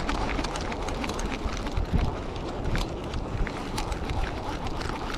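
Wind rumbling on the microphone, with a scatter of small, sharp clicks and ticks throughout.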